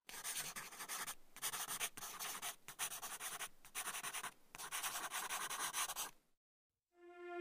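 Scratchy, rustling noise in a string of short stretches broken by brief gaps, cutting off about six seconds in. Sustained synthesizer-like music tones begin near the end.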